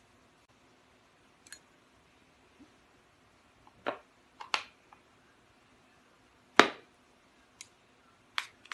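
Handling noise: several short, scattered clicks and taps, the loudest about two-thirds of the way in.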